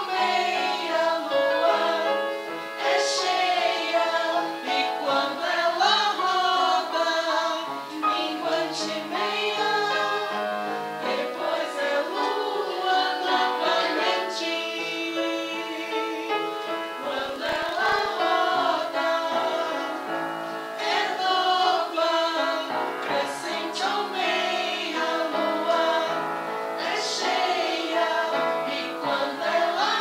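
A mixed choir of men's, women's and girls' voices singing together in long held notes.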